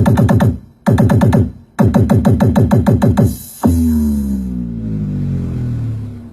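Electronic bass-test music: rapid stuttering synth-bass notes in three bursts with short gaps, then one deep bass note that slides down in pitch and fades out.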